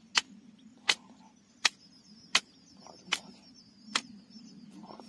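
Sickle blade chopping at a wooden stick, trimming it: about six sharp strokes, roughly one every 0.7 seconds, the later ones softer.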